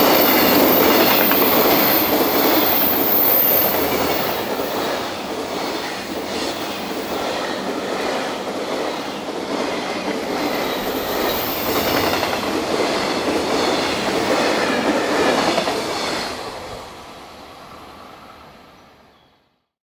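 Freight train wagons rolling past, with wheels clicking over the rail joints and a thin high wheel squeal. The sound dies away over the last few seconds.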